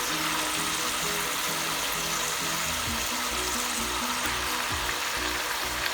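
Marinated chicken pieces frying with garlic, onions and bell pepper in a hot oiled pan: a steady, even sizzle, under background music.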